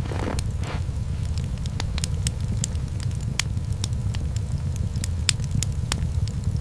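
Wood fire crackling: sharp, irregular pops, about one or two a second, over a steady low rumble.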